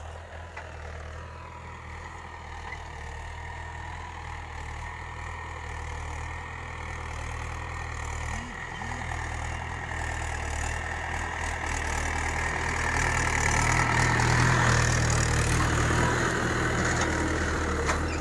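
Mahindra 475 DI tractor's four-cylinder diesel engine running steadily while it pulls a five-tine cultivator through the soil. It grows louder as the tractor draws near and is loudest about three-quarters of the way through as it passes close by.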